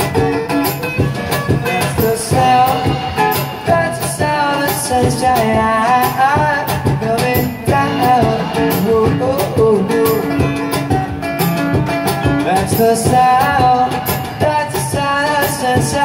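Live band music: an acoustic guitar and a drum kit playing a steady beat, with a voice singing a wavering melody over them.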